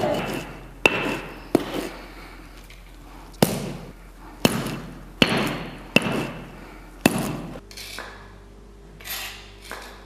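Kezwan (terebinth) berries being pounded and worked into paste on a grinding stone: sharp knocks, some with a short metallic ring, about one a second. After about seven and a half seconds the knocks stop and only softer scraping is left.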